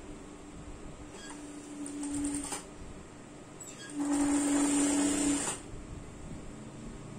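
Electric sewing machine stitching in two short runs with a steady motor hum. The first run starts about a second in; the second, louder one starts about four seconds in. It is sewing a sleeve onto a garment.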